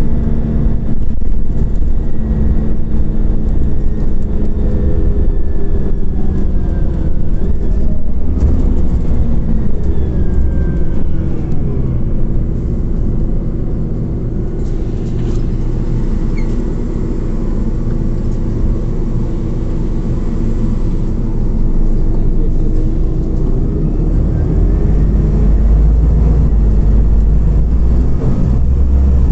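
Scania OmniCity CNG city bus heard from inside while driving: a steady low engine and road rumble, with the engine pitch slowly rising and falling as the bus changes speed, heaviest near the end.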